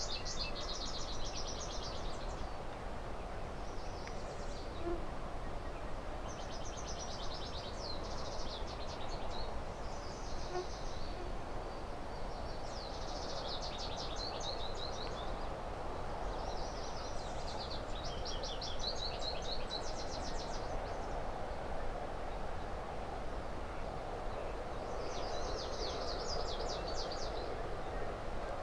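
A songbird singing short, rapid trills, one phrase every few seconds, over a steady rushing background.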